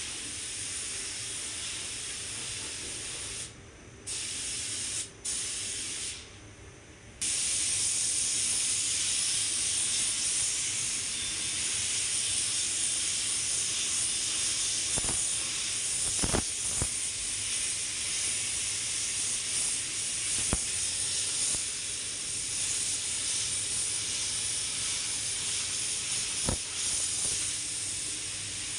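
Compressed-air gravity-feed paint spray gun hissing steadily as it sprays white paint onto car body panels. The hiss cuts out briefly three times in the first seven seconds, and a few faint knocks come later.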